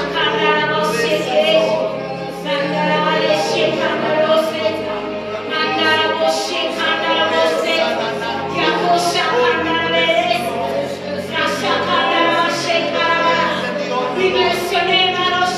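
A woman singing a worship song into a microphone, over sustained keyboard chords that change every few seconds.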